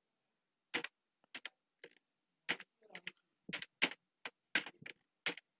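Typing on a computer keyboard: about a dozen separate keystrokes, slow and unevenly spaced.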